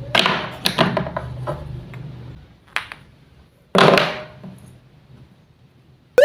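Wooden toy fruit and vegetable pieces and a toy knife knocking and clacking on a board, a run of sharp hard taps, then a louder half-second rasping burst about four seconds in. A short rising chirp closes the window.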